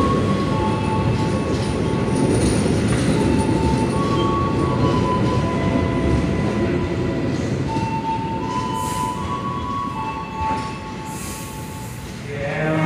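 Passenger train cars rolling past and away on the station track: a steady wheel rumble with repeated short, high wheel squeals, dying away about ten seconds in as the last car leaves.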